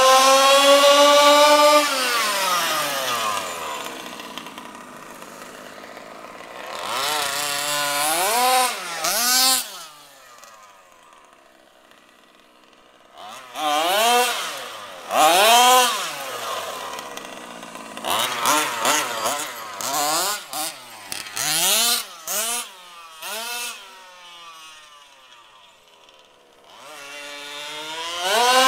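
Zenoah G320 two-stroke engine with a V2 Dominator tuned pipe in a 1/5-scale HPI Baja SS, revving hard and backing off again and again as the car runs back and forth, with a few short throttle blips and two quieter gaps. The high-speed needle is set slightly lean.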